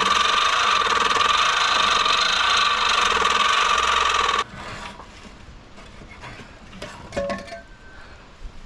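A power tool runs at a steady, high pitch, cutting the exhaust pipe to free the glass-pack mufflers, and stops abruptly about four and a half seconds in. A few light metal knocks follow near the end.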